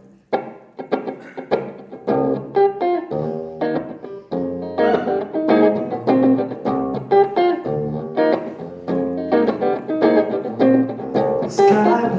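Electric guitar played through an amplifier, picking a run of single notes and chords in a steady rhythm.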